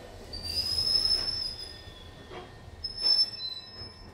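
London Underground 1972 Stock Tube train, heard from inside the carriage, its wheels squealing twice in high, whistling tones, the first about half a second in and the second near the end. A few dull knocks from the wheels come over the running rumble.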